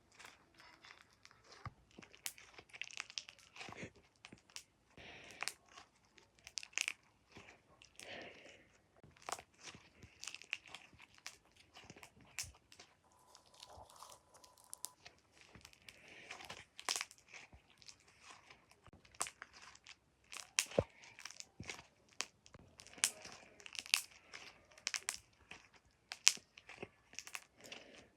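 Slime being squeezed and stretched by hand, giving off irregular little pops and crackles as air bubbles in it burst.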